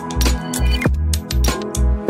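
Background electronic music with a steady beat, a low drum pulsing about four times a second under held synth tones.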